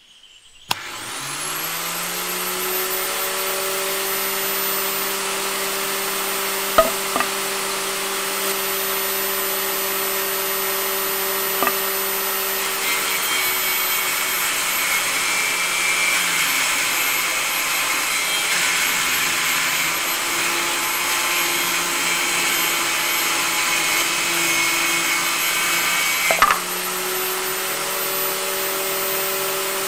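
Homemade miniature electric circular saw switched on, its small motor spinning up within a second to a steady whine. From about 13 s to 26 s the blade cuts through a thin tree branch, adding a rough rasping sound while the motor's pitch drops slightly under load, then it whines freely again; a few short clicks along the way.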